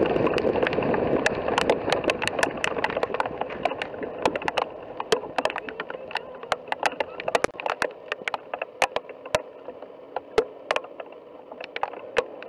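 Scattered sharp ticks, several a second and irregular, over a rushing noise that fades away over the first few seconds.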